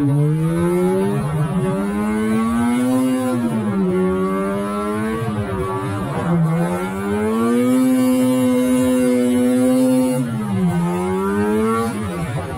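Two-stroke snowmobile engine running hard during a ride, its pitch rising and falling as the throttle is let off and opened again. It dips sharply three times and holds steady for a couple of seconds in between.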